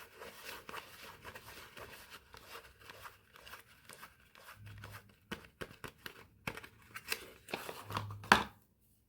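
Soap packaging being crinkled and torn open by hand: a steady rustling and crinkling, then a run of sharp crackles and snaps. The loudest snap comes just after eight seconds, and then the rustling stops.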